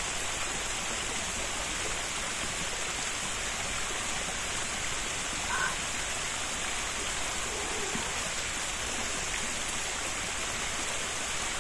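Small mountain stream running steadily, an even wash of flowing water, with a faint short sound about halfway through.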